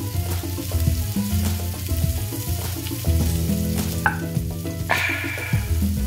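Salmon frying in oil in a skillet, a steady sizzle, under background music with a bass line that steps from note to note.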